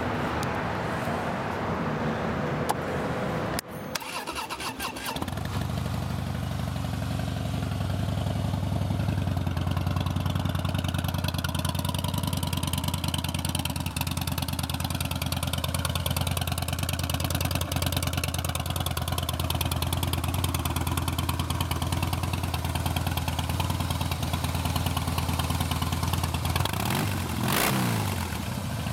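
A 2014 Harley-Davidson Heritage Softail Classic's 103-cubic-inch fuel-injected Twin Cam V-twin, with staggered Vance & Hines pipes, is cranked on the starter and catches about five seconds in. It then idles steadily, with one brief rev near the end.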